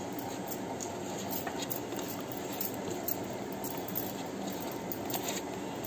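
Eating by hand: fingers mixing rice and curry on a plate, with soft squishes and scattered small clicks over a steady low background noise.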